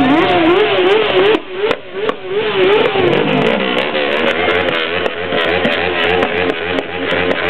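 Motorcycle engines revving, the revs blipped up and down about three times a second for the first few seconds, over a dense crowd-and-traffic din. A few sharp pops come around the second and two-second marks.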